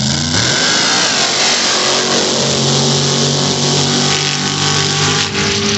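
Loud sand-drag race vehicle engine running at high revs. Its pitch rises about a third of a second in and then holds steady, with a strong rushing noise over it that eases near the end.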